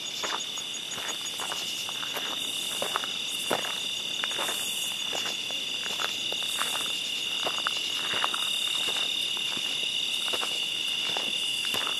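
A steady, high-pitched chorus of night insects runs throughout, with footsteps on the forest floor sounding at irregular intervals as someone walks.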